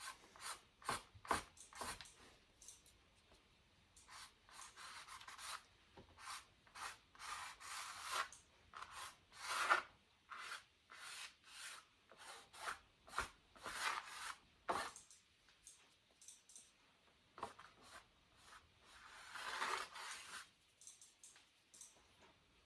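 Paintbrush scrubbing on canvas in many short, irregular strokes, with one longer stroke near the end.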